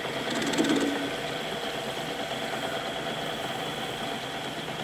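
Centre lathe running, a steady mechanical hum with faint steady whines from its drive. In the first second there is a short run of fast, even clicking.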